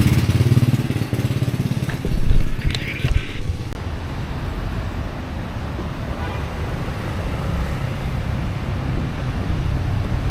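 Street traffic: a motorbike engine is loud at first and fades within about a second, then a steady low traffic rumble carries on.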